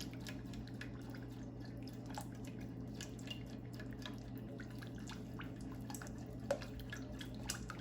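Faint, irregular ticks and pops from a pan of olive oil, lemon juice and honey warming on the stove, heated to steaming but short of a boil, over a steady low hum.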